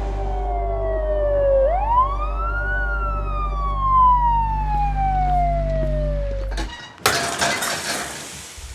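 Ambulance siren wailing in one slow sweep, sliding down, then up, then gradually down, heard from inside a car following it over a steady low engine drone. The siren cuts off about six and a half seconds in, and a loud burst of clattering noise follows.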